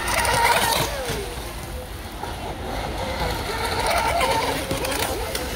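Radio-controlled speedboat running on the water, its motor whining over hull spray. It is loudest in the first second, then the motor's pitch drops as it eases off.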